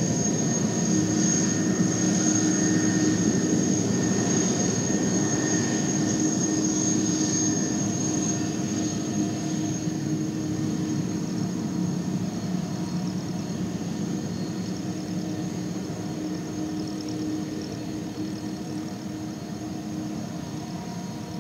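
Airbus A330 jet engines running with a steady whine over a broad rush of noise, slowly growing fainter as the airliner moves away.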